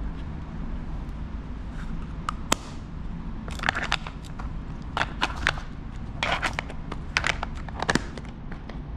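Small clear plastic storage box and tissue paper being handled: a sharp click, then bursts of paper crinkling and plastic clicks and scrapes as the tissue is folded and the lid shut, over a steady low rumble.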